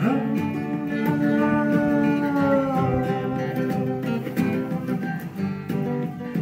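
Background music led by acoustic guitar, with a long held note that slides down in pitch two or three seconds in.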